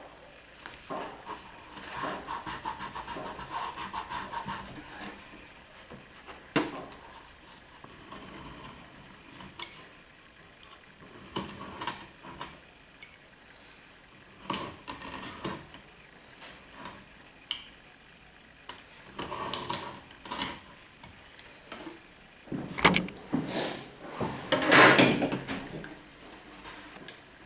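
Hand work on thin wood veneer: fingers rubbing and pressing paper tape onto the veneer, and a snap-off utility knife scoring the veneer along a steel rule. A quick run of fine rubbing strokes at first, a sharp click, then scattered short scratching and scraping bursts, the loudest near the end.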